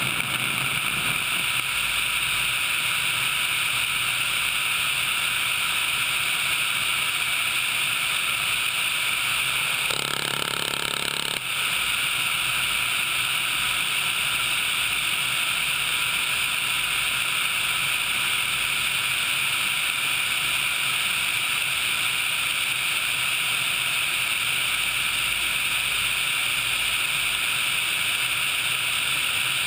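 HH-60 Pave Hawk helicopter in flight, heard through a camera mounted on the airframe: a steady high rushing noise from engines, rotor and airflow. The tone shifts briefly about ten seconds in.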